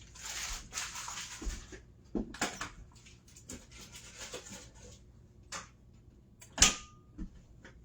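Kitchen handling noises: a short rush of hiss, then scattered light clicks and knocks of cookware, with one sharper knock near the end.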